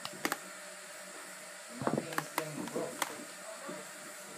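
A hairbrush being drawn through a doll's hair: short scraping brush strokes with a few sharp clicks, most of them near the start and around the middle.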